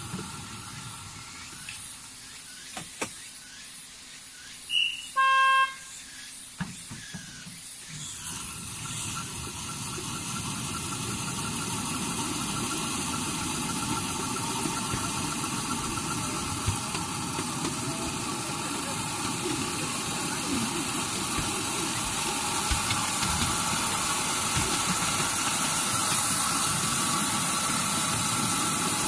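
Ride-on miniature railway train giving a short horn beep about five seconds in, then moving off. Its wheels run on the rails with a steady whine, and the running noise grows gradually louder.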